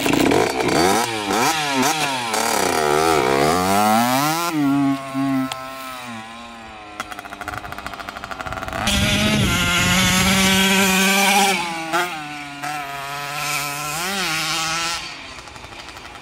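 1983 Honda CR50's 50cc two-stroke engine revving up and down as the bike rides off, the revs sagging and falling away more than once. This is bogging, which the owner traced to the kill switch being pressed by its rubber cover and cutting the engine.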